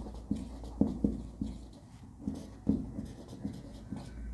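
Faint, irregular scratching and tapping of pen strokes as a diagram is written during a pause in speech.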